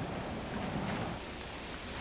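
Steady hiss-like noise with no clear source, a little more low rumble in the first second.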